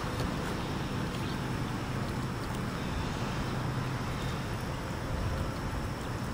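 Steady outdoor wind and water noise with a low hum underneath, and no distinct events.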